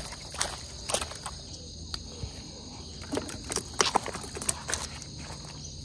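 Steady chorus of insects trilling, with a scattering of short sharp knocks and clicks, about ten, thickest in the middle.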